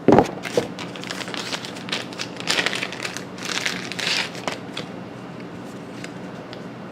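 Board game components and their packaging being handled: crinkling and rustling with small clicks, dying away after about four and a half seconds, over a faint steady hum.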